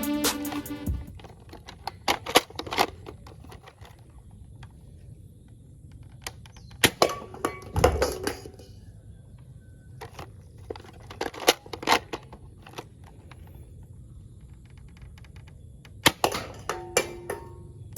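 Plastic toy gun being handled: scattered sharp clicks and knocks, singly and in quick groups of two or three, over a faint low hum.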